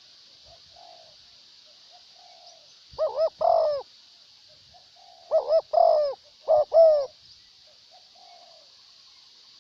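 Spotted doves cooing: one close bird gives two loud multi-note coo phrases in the middle, while fainter coos from another dove come in between. A steady high hiss runs underneath.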